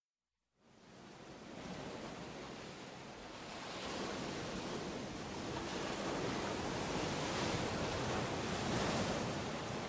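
Rushing ocean surf, fading in from silence just over half a second in and slowly swelling louder.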